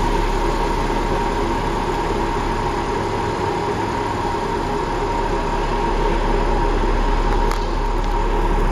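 Audi A7's engine running steadily near idle as the driverless car slowly reverses itself into a space in a concrete parking garage, over a constant hum. A short click comes about seven and a half seconds in.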